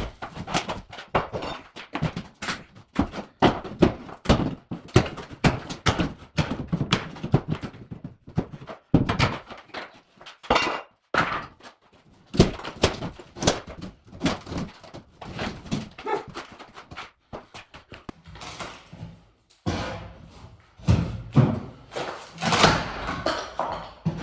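Wall paneling being pulled and broken off by hand: a long, irregular run of knocks, cracks and thuds, with a cluster of louder hits near the end.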